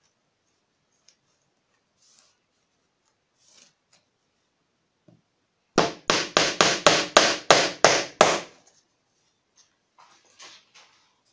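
Small hammer driving small headed nails into a thin wooden strip lying on plywood, the nails going through pre-drilled holes: a quick run of about ten sharp blows, around four a second, starting about halfway through. Faint rustling and handling noises come before and after.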